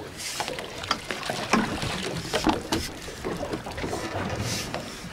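A landing net being hauled out of the sea: water splashing and streaming off the mesh as it is lifted, with irregular sharp knocks and taps of the net's pole and frame against the boat's side.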